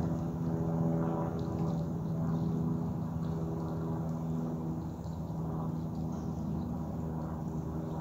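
Steady low mechanical hum holding one pitch, like a machine or motor running nearby.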